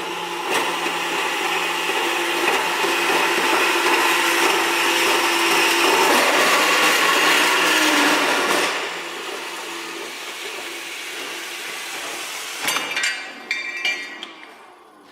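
Electric metal-cutting machine cutting through a steel pipe: a loud, steady grinding cut for about eight seconds, then the machine running on more quietly once through the cut. A few knocks and rattles near the end.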